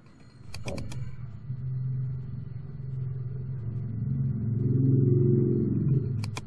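A low engine rumble that grows louder about four to six seconds in, with quick computer-mouse clicks near the start and again near the end.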